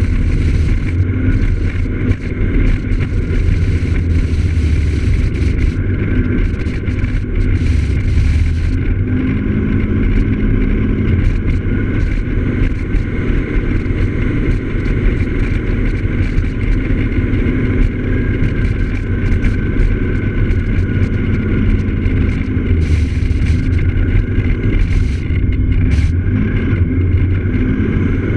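Piaggio X9 Evo maxi-scooter riding at road speed: a steady engine drone under heavy low wind rumble on the onboard microphone, the engine note shifting slightly in pitch as the speed changes.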